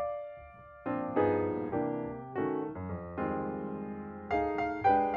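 Background piano music: struck chords and notes that ring and fade, after a short lull about a second in.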